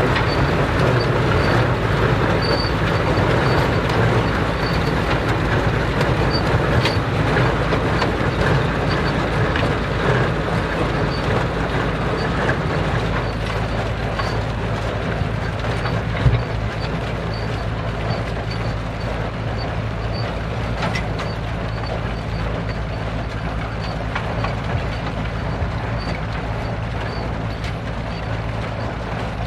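Vintage tractor engine running steadily under harvesting work, with machinery rattling. A faint high ticking repeats throughout, and there is a single sharp knock about halfway through; the sound eases off slightly in the second half.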